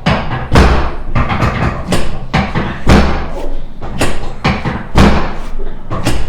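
Chiropractic adjustment thrusts on a patient lying face down on a treatment table: a series of heavy thuds, about one a second.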